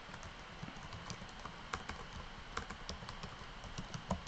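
Typing on a computer keyboard: a quiet, irregular run of key clicks.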